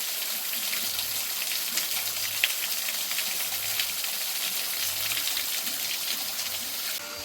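Waterfall: a steady rush of falling water, with a few brief sharp splashes standing out. The rush drops away suddenly near the end.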